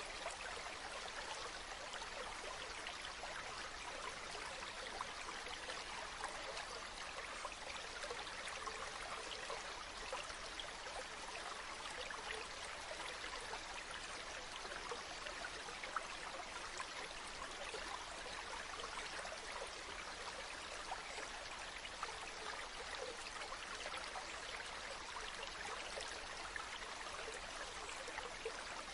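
River stream flowing steadily, water rushing and trickling over stones.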